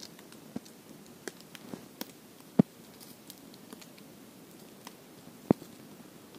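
A metal cooking utensil clinking and scraping against a small camping cookpot: a few sharp, separate metallic clicks, the loudest about two and a half seconds in and another about five and a half seconds in.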